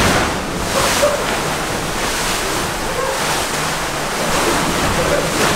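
About 700 gallons of water sloshing and splashing in an inflatable pool inside a moving truck's cargo box, surging over the rim onto the floor as the truck drives. A loud, continuous rush of water.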